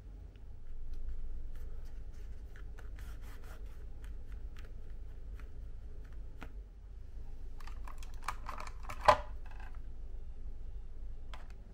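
Handling noises of light clicks and rubbing, then a cluster of plastic clatter with one sharp clack about nine seconds in as a slim hotel desk-phone handset is taken off its base, over a low steady room hum.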